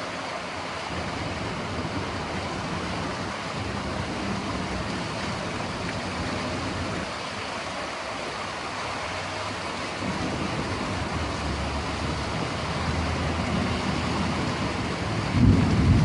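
Steady rushing noise of floodwater, growing a little louder, with a heavy low rumble near the end.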